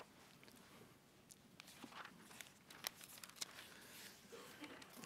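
Faint rustling of thin Bible pages being leafed through, in short crinkly rustles and small clicks that start about a second and a half in.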